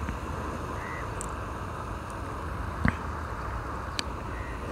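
Steady outdoor rushing noise, with a few brief faint bird chirps and a couple of light clicks.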